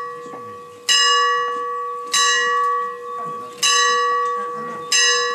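A single church bell struck four times, about every second and a half, each stroke ringing on and fading before the next.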